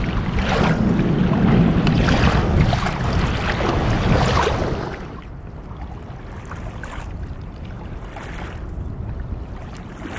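Wind buffeting the microphone and water washing against a kayak's hull while it is under way on the ocean, with gusty surges. It drops to a quieter wash about five seconds in.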